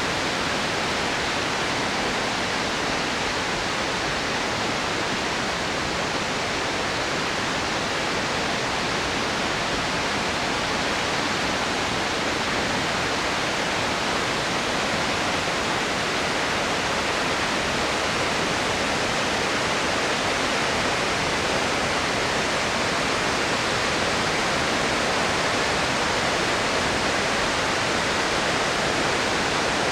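Concrete arch dam releasing floodwater: a steady, unbroken rush of water falling and churning below the dam.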